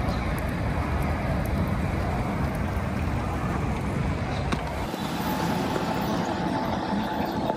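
Steady outdoor city ambience: an even hiss over a low rumble of road traffic, with the rumble thinning out about five seconds in.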